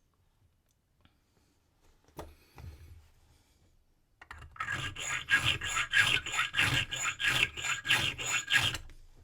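A single knock about two seconds in, then a hand file rasping back and forth on a brass key blank, about three even strokes a second, while a wafer cam lock key is being impressioned.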